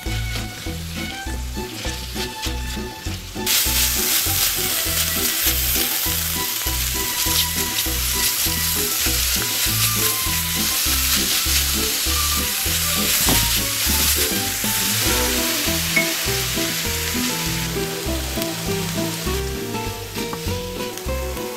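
Round zucchini stir-frying in butter in a stainless steel pan over medium-high heat, sizzling hard while a spatula stirs and turns the pieces. The sizzle comes in abruptly a few seconds in and eases off near the end. Background music with a steady beat plays underneath.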